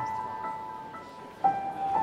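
Soft background music of slow, ringing struck notes, a new note entering about every half second to second and sustaining.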